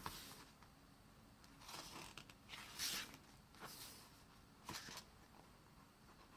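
Pages of a glossy album photobook being turned by hand: four short papery swishes about a second apart, with a light click as a page or the cover is handled.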